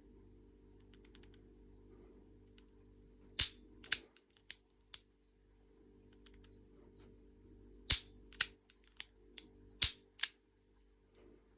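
Replica Smith & Wesson revolver's action clicking: a run of four sharp metallic clicks, then after a pause a run of six, with fainter clicks between them, over a steady low hum.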